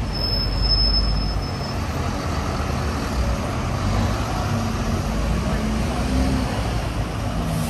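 Busy street traffic: a steady low rumble of buses and cars, with a brief thin high-pitched squeal in the first second or so.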